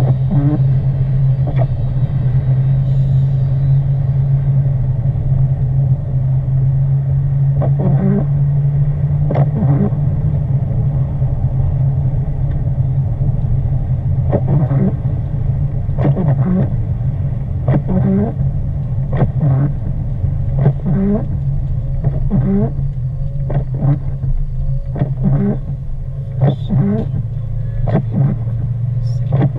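Car driving with a steady low drone of engine and road noise. From about eight seconds in, short squeaks come roughly once a second.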